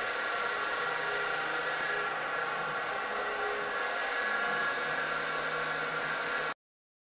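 CNC lathe running with a steady whir and a constant high whine. It cuts off suddenly near the end.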